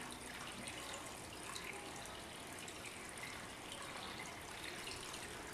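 Faint, steady room tone: an even hiss with no distinct events.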